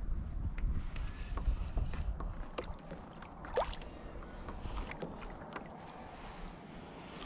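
Kayak paddle strokes: the blades dipping and pulling through the water with small splashes and drips, over a steady low rumble of wind on the microphone. A brief rising squeak about three and a half seconds in.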